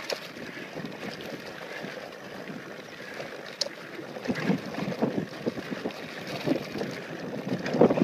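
Mountain bike rolling fast down a dirt trail: wind rushing over the microphone with tyre crunch on the dirt, and rattling knocks from the bike over bumps that come more often and louder from about four seconds in.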